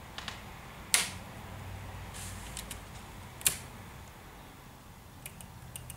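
Hands handling styrene model-kit parts and a plastic glue bottle on a cutting mat: scattered light clicks and taps, with two sharper clicks about a second in and about three and a half seconds in, over a low steady hum.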